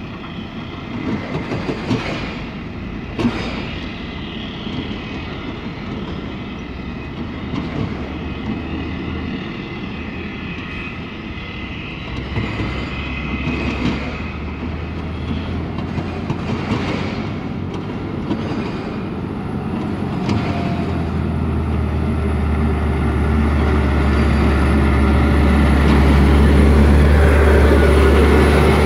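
Diesel engine of a DAF XF 105 tipper semi-truck working on a gravel quarry road, growing louder as the truck comes up to and alongside the listener, with a deep steady drone loudest near the end. Tyres crunch on gravel and the tipper body rattles, with a couple of sharp knocks in the first few seconds.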